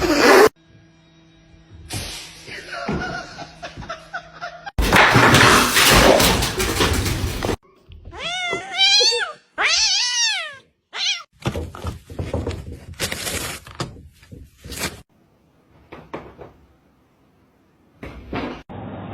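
Domestic cat meowing twice, two drawn-out calls that rise and fall, among bumps, thuds and bursts of clatter.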